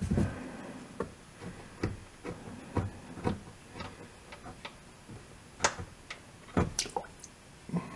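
Wrench working the oil drain plug loose under a car: a string of irregular metallic clicks and knocks, a few louder ones past the middle.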